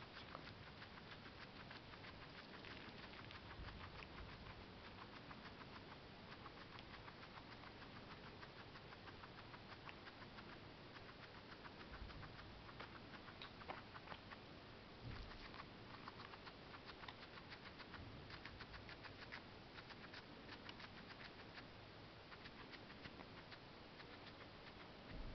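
Guinea pig chewing parsley: a fast, faint, continuous run of small crunching clicks from its teeth, with a couple of soft low bumps around the middle.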